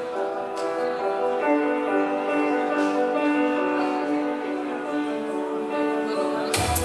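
Background music: a melody of held notes, with a bass line and drum beat coming in near the end.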